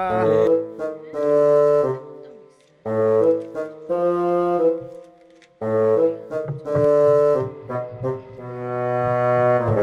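Background music: a melody on brass or reed instruments in three phrases of held notes, breaking off briefly twice.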